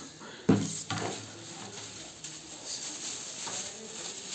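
Quiet rustling and handling noise as the heater's paperwork and packaging are moved about, with a short knock about half a second in.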